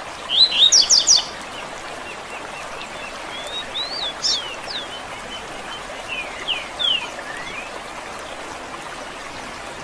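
Wild songbirds calling: a quick loud run of chirps about half a second in, then scattered short sliding call notes in the middle, over a steady hiss like flowing water.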